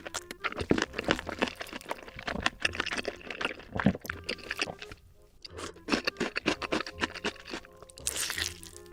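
Close-miked eating sounds: sausages being bitten and chewed, with a dense run of crunchy snaps and wet chewing clicks. There is a short pause about five seconds in.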